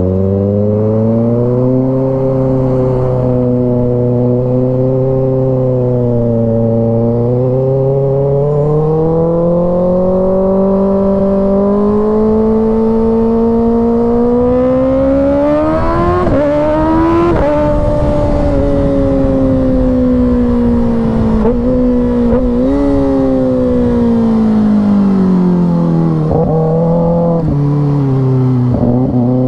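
2024 Kawasaki Ninja ZX-6R 636 inline-four, with an aftermarket M4 exhaust, on the road. The engine pitch climbs slowly under throttle through the first half, with quick up-and-down jumps about halfway and again a few seconds later as it shifts. It then falls off through the second half, drops low near the end and begins rising again.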